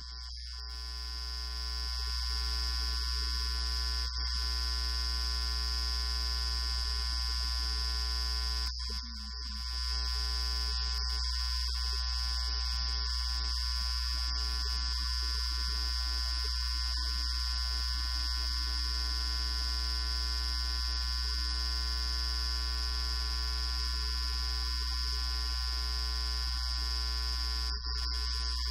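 Steady electrical buzz: a low mains hum with a stack of overtones and a high steady whine, dipping briefly about nine seconds in. It masks the room's speech, the sign of a fault in the audio feed.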